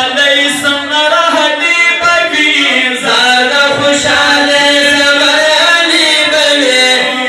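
Men's voices singing a Pashto naat, a devotional chant in praise of the Prophet, with long held notes that bend slowly in pitch and no instruments or beat.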